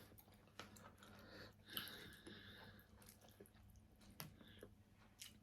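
Faint close-up chewing and mouth sounds of people eating, with soft wet smacks and small clicks.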